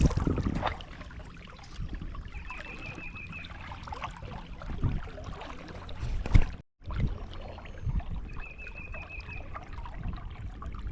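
Creek-side outdoor ambience: handling rumble, rustles and clicks on the camera microphone over a faint trickle of water. A short, high, rapid trill comes three times, a few seconds apart.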